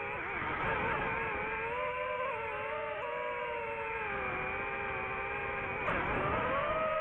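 Racing drone's electric motors and propellers whining at speed, a stack of pitches that sag and rise with the throttle. The pitch dips sharply about six seconds in, then climbs back.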